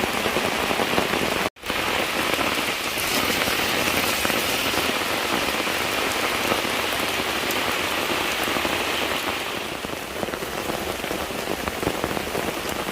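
Steady rain pattering on a surface, with fine drop ticks throughout. The sound cuts out for an instant about a second and a half in.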